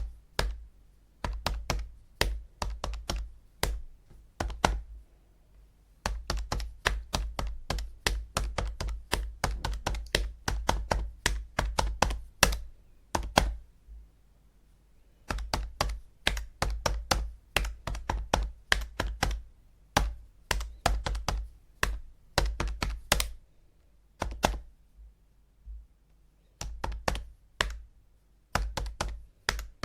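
Calculator buttons being pressed, sharp plastic clicks several a second in runs, with pauses of one to two seconds between runs.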